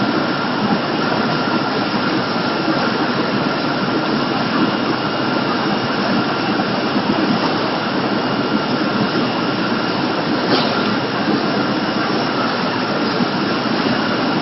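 Poultry processing line machinery running steadily: a constant mechanical noise with a faint high whine, and one brief click about ten seconds in.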